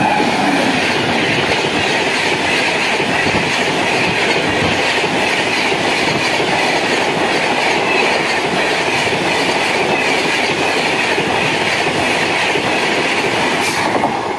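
An electric express train (a WAP-7 locomotive hauling LHB coaches) passing close at speed: a loud, steady rush of steel wheels on rail with a clickety-clack of the coaches over the rail joints. It eases as the last coach goes by near the end.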